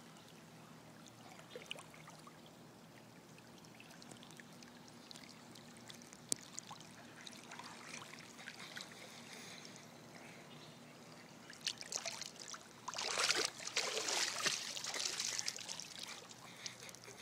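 Water sloshing and splashing around a camera submerged in a swimming pool. It is muffled and faint, with scattered small clicks, then turns loud for a few seconds near the end.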